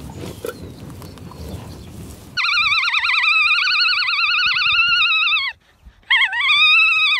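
Alpaca humming: a long high-pitched call with a rapid waver lasting about three seconds, then after a short pause a second, shorter call that rises and falls. Before the calls begin there is a low rough noise for about two seconds.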